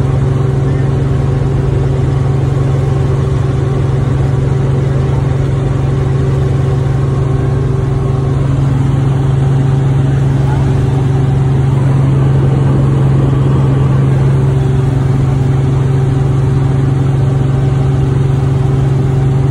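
Small helicopter in flight, heard from inside the cabin: a loud, steady drone of engine and rotor, with a deep hum and a few fainter higher tones over it.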